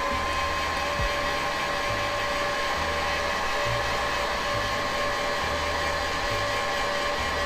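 Heat gun blowing steadily, a whine held at one pitch over the rush of air, shrinking heat-shrink tubing over a soldered wire splice.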